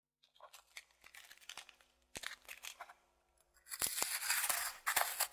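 Irregular crackling and crinkling noise with scattered sharp clicks, patchy at first and denser and louder from about three and a half seconds in.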